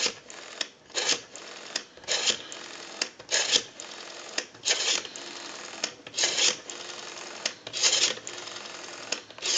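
Rotary telephone dial being wound round and let go digit after digit, pulse-dialing out: a short rasping burst about every second or so, with a fainter steady whirr between as the dial runs back.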